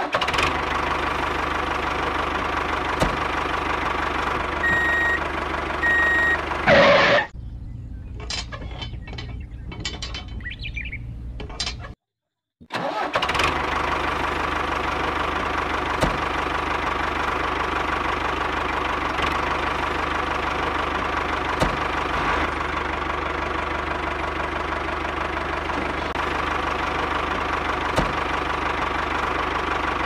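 Tractor engine running steadily, with two short beeps about five seconds in. The engine sound turns quieter and different for a few seconds around the middle, cuts out briefly, then runs steadily again.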